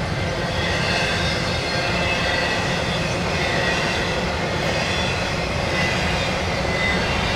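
Intermodal freight train's double-stack and trailer cars rolling steadily past, a continuous rumble of steel wheels on rail with faint high wheel squeals coming and going.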